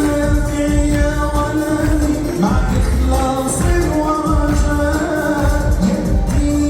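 A male nasheed singer holding long sung notes over amplified backing music with a heavy bass.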